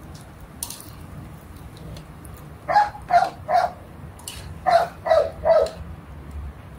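A dog barking six times in two quick runs of three, over a steady low hum.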